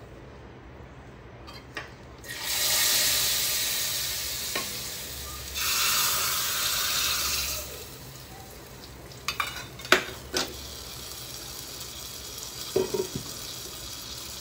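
Hot oil tempering of mustard seeds, dried red chillies and curry leaves poured into a wok of tamarind kuzhambu, sizzling loudly twice: about two seconds in, fading over a few seconds, and again about five and a half seconds in. Later a few sharp metal clinks of utensils as the wok is covered with its lid.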